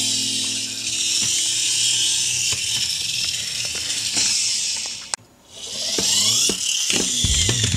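Small toy cars' friction motors whirring as the cars are pushed and run along a plastic track, cutting out briefly about five seconds in. Background music with a beat comes in near the end.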